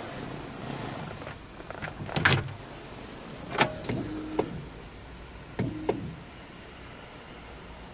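Ignition key being put into and turned in the ignition switch of a 2016 Chevrolet Niva: a few sharp clicks, and twice a short electric whir of about half a second as the ignition is switched on.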